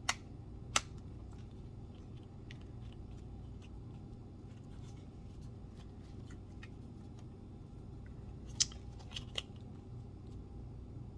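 Handling noise from a cardboard trading-card box being opened: two sharp clicks at the start, faint scattered ticks, then a cluster of clicks and taps about eight to nine seconds in, over a steady low hum.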